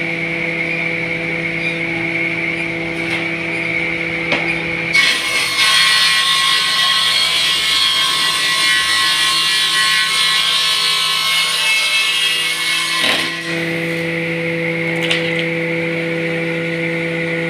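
Electric table saw running with a steady motor hum. About five seconds in, the blade cuts through wood for roughly eight seconds, then the saw runs free again.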